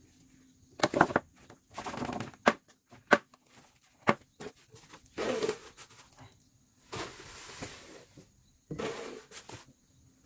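A plastic scoop and hands scraping and scooping live mealworms off the floor of a wooden tray: a series of rustling swishes broken by short, sharp clicks and knocks of the scoop.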